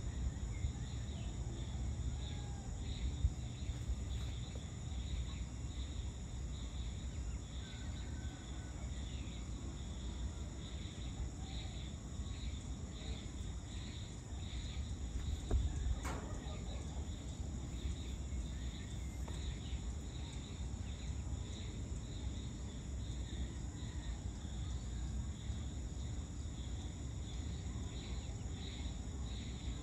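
Evening chorus of insects, a steady high-pitched chirring that pulses regularly, over a low rumble. A single sharp click sounds about halfway through.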